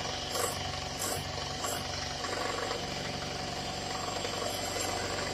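Electric hand mixer running steadily, its beaters whipping cream mixed with pineapple jelly crystals in a glass bowl, with a few brief ticks in the first two seconds.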